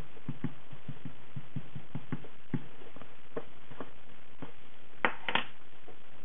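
Small ink pad dabbed repeatedly against a clear photopolymer stamp on an acrylic block: quick light tapping, about five or six taps a second, thinning out after a couple of seconds, with two sharper knocks about five seconds in.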